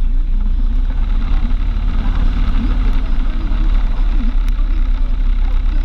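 Car driving at highway speed: a steady low rumble of road and engine noise.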